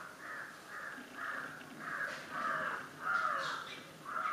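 A bird calling over and over, short calls about twice a second.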